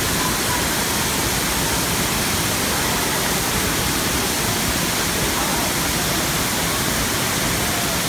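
Waterfall cascading down stepped stone tiers into a pool: a steady, unbroken rush of falling water.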